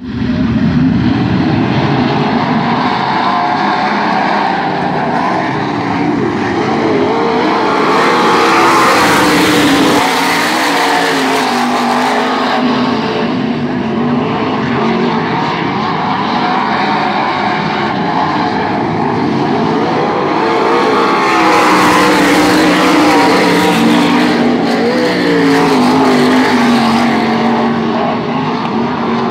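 A pack of dirt-track race cars racing around the oval with engines at high revs. The sound swells louder as the pack passes, about eight seconds in and again around twenty-one seconds in.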